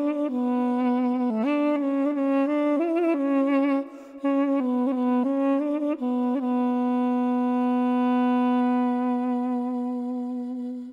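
Background music: a single wind instrument playing a slow, ornamented melody, breaking off briefly about four seconds in and then holding one long note.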